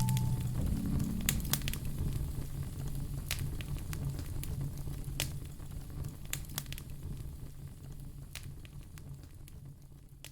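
Wood fire in a fireplace crackling, with irregular sharp snaps and pops over a low rumble. The sound fades gradually toward the end.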